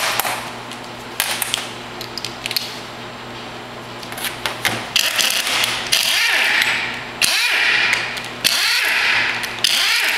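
Handheld power driver running the front through-bolts out of a Denso 10PA A/C compressor: about four runs of a second or two each in the second half, one per bolt, after some lighter metal clatter.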